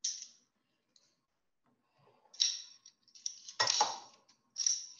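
Handling of a metal garlic press in the kitchen: four short clicking scrapes, the third and loudest with a low knock.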